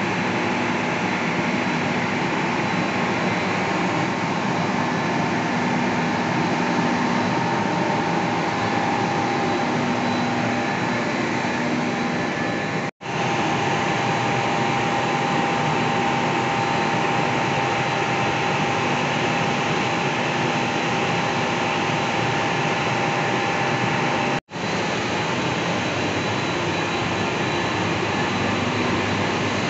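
Hydroelectric power-house generating machinery running: a loud, steady whirring drone with a few steady whining tones in it, the sign of a unit turning under water flow released from the dam. The sound cuts out abruptly for an instant twice, once near the middle and once about three-quarters through.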